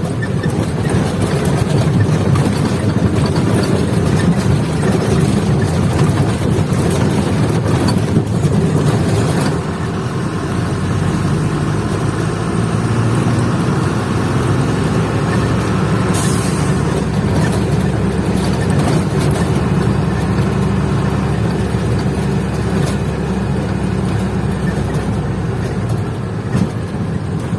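Truck engine running steadily with road noise while the truck is driven, heard from inside the cab. A brief hiss comes about sixteen seconds in.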